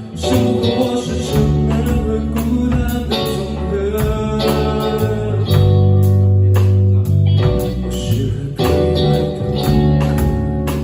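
Live rock band playing: electric guitars over sustained bass notes and a drum kit, with a singer's voice.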